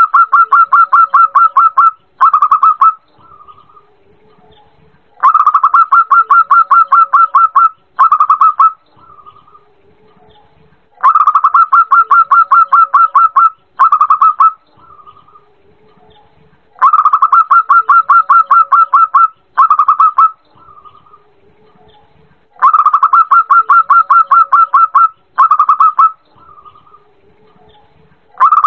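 Zebra dove (perkutut) song, repeated over and over. Each phrase is a loud, rapid staccato cooing trill lasting about two and a half seconds, followed by two short bursts, and the phrase returns about every six seconds. Fainter low notes sound between the phrases.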